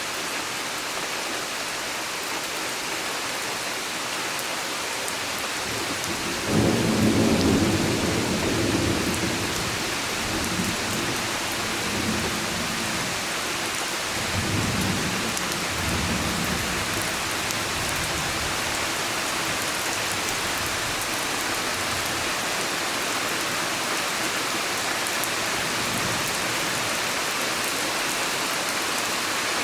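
Steady heavy summer rain falling. A few seconds in, a low roll of thunder breaks in suddenly and rumbles in waves for about ten seconds before fading back under the rain.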